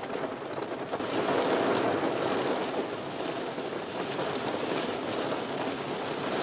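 Heavy rain pouring onto a car's roof and windows, heard from inside the cabin as a steady, dense hiss during a thunderstorm.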